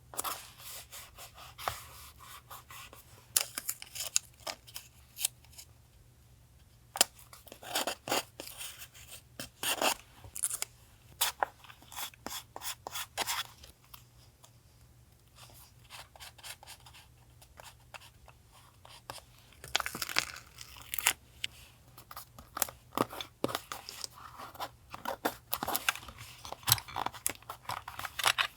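Paper and stickers being handled for a collage journal: irregular clusters of crisp rustling, scratching and crackling, with quieter pauses around the middle.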